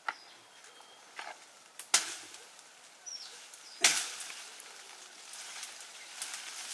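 Four sharp chopping strikes at uneven intervals, the third and fourth the loudest and heaviest.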